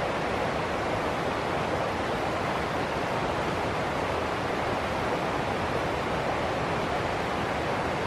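Stream water rushing over rocks in small rapids, a steady even rush with no breaks.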